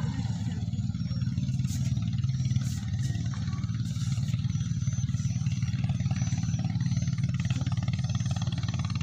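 A steady low engine hum runs throughout.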